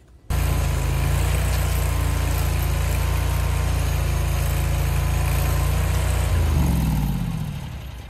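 A 23 HP Chinese mini skid steer's engine running steadily at high speed. It starts suddenly, and about six and a half seconds in the revs fall away as the engine is throttled down.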